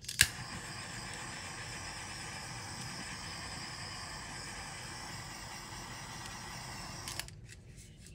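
Handheld gas torch lit with a sharp click, then its flame hissing steadily for about seven seconds as it is swept over wet poured paint on rocks to pop the air bubbles, cutting off near the end.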